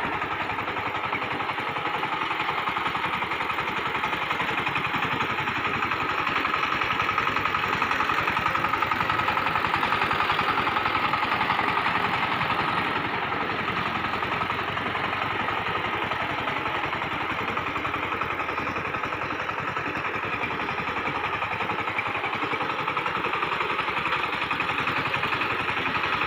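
The 20 hp single-cylinder diesel engine of a SIFANG walking power tiller running steadily under load as it pulls its plough share through flooded paddy mud, puddling the field.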